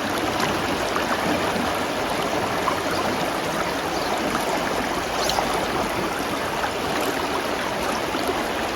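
River water flowing steadily, a constant rushing noise.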